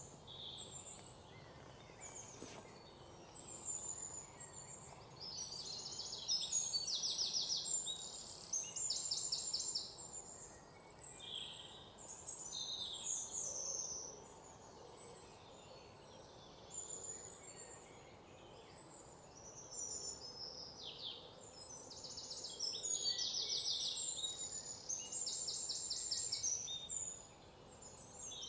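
Several birds chirping and calling, a busy flurry of short high calls broken by rapid trills, over a faint background hiss.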